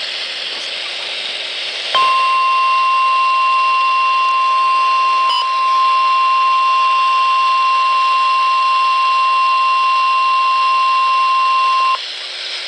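NOAA Weather Radio warning alarm tone, the 1050 Hz alert, sounding through a Midland WR-100 weather radio's speaker: one steady high beep that starts about two seconds in and holds for about ten seconds before cutting off, over constant radio hiss. The tone signals that an urgent warning message follows, here a severe thunderstorm warning.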